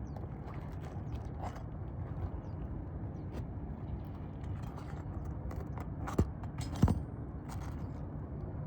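Nails being pried out of brittle asphalt roof shingles: scraping and small knocks, with two sharp clicks about six and seven seconds in, over a steady low rumble.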